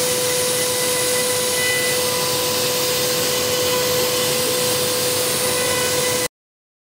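3-axis CNC machine running: a steady high whine over a loud even hiss, which cuts off suddenly near the end.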